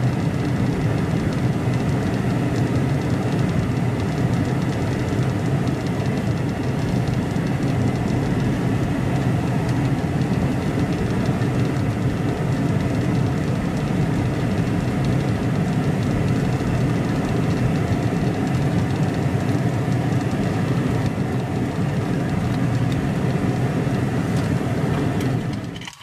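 Steady low road rumble inside the cabin of a 2008 Mercury Grand Marquis cruising at road speed, tyre and engine noise blended and unchanging, cutting off just before the end.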